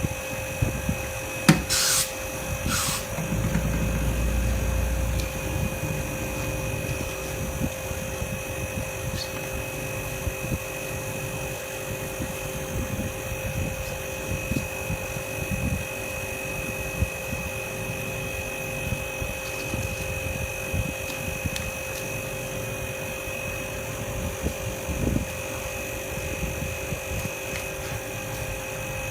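A steady mechanical hum with several fixed tones, as from a small motor running, with a few sharp clicks about two seconds in and a brief low rumble around four seconds.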